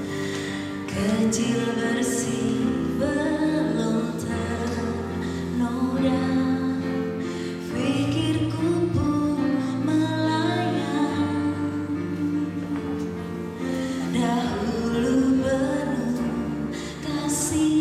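A woman singing a slow song into a handheld microphone, over instrumental accompaniment.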